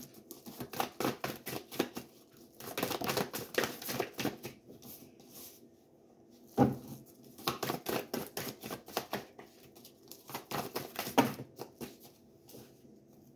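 A deck of tarot cards being shuffled by hand: rapid papery flicks and clicks as the cards slide through the fingers, in four bursts with short pauses between them. A thump comes about six and a half seconds in.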